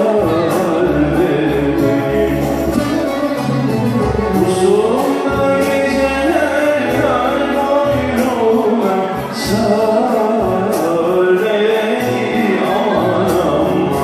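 Live Turkish folk music: a man singing a melodic line into a microphone, accompanied by a bağlama (long-necked saz lute), a violin and a Korg keyboard.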